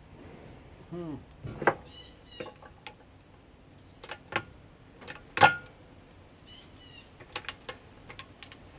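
Hand tools and loose plastic and metal parts clicking and knocking as a CRT television is taken apart, in scattered single knocks with the loudest about five and a half seconds in and a quick run of clicks near the end.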